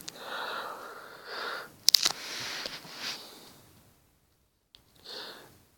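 A man breathing and sniffing close to the microphone, with two sharp clicks about two seconds in from a stylus tapping the tablet screen, and one last short breath near the end.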